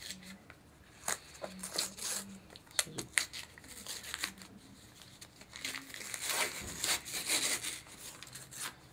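Black gift-wrap paper being torn and crumpled off a small cardboard retail box: scattered sharp rips in the first few seconds, then a denser stretch of rustling and crinkling about six to eight seconds in.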